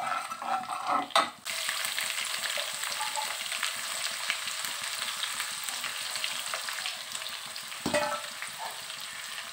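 A metal spoon scraping and stirring cumin seeds in hot oil in a nonstick wok, then sliced onions dropped into the oil, setting off a loud, steady sizzle about a second and a half in. A brief clatter near the end.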